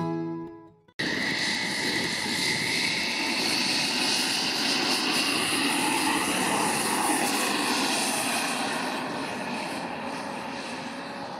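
Gas-turbine engine of a radio-controlled model jet running at high power, cutting in abruptly about a second in: a steady roar with a high-pitched whine, easing off slightly near the end.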